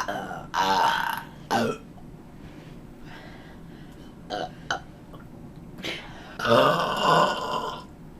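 A girl burping loudly several times: a long burp about half a second in, a short one right after, and the longest, loudest burp near the end, with a few faint short sounds in between.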